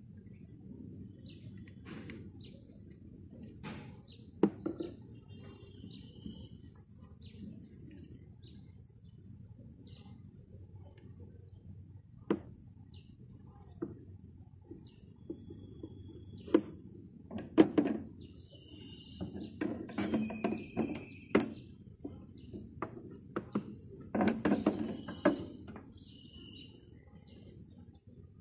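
Scattered sharp clicks and knocks of a new hood gas strut being handled and fitted onto its upper mount on a Lexus ES 330, the loudest knock a little past halfway. Birds chirp in the background in the second half.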